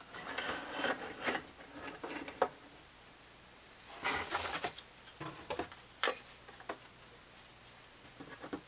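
Rustling and crinkling of bubble wrap and packaging as parts are pulled from a box, loudest about four seconds in, with scattered light clicks and knocks of hard resin model parts being handled and set down.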